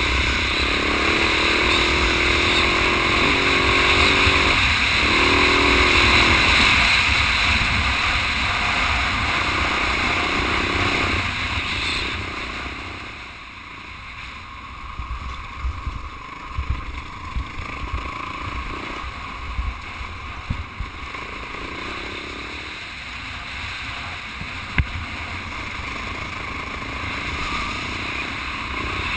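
Husaberg 450 FE single-cylinder four-stroke engine running under way, heard through heavy wind noise on a helmet camera. The engine note rises and falls for the first twelve seconds, then the sound drops quieter, with occasional short knocks.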